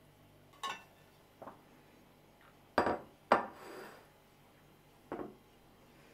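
Ceramic plates set down on a kitchen countertop: two loud knocks about half a second apart near the middle, with a few lighter knocks before and after as the plates are moved into place.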